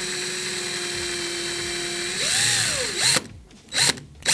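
Cordless drill motor running steadily, spinning strands of wire to twist them together for a coil. About two seconds in, the pitch rises briefly and then falls as the drill spins down. A few short bursts follow.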